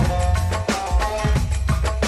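Background music with a heavy bass beat, regular percussion hits and sustained melodic notes.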